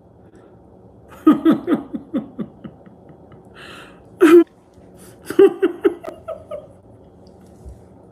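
A woman laughing in two bouts of short, falling ha-ha bursts, about a second in and again around five seconds. Between them she draws a sharp breath and gives one loud burst of laughter just past four seconds.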